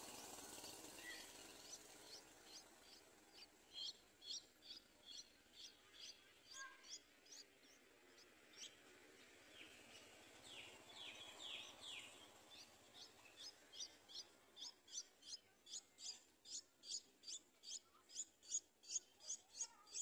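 Streak-eared bulbul nestling begging: a run of short, high chirps about two to three a second, with a few longer falling notes midway, growing louder and more regular near the end as the chick gapes for food.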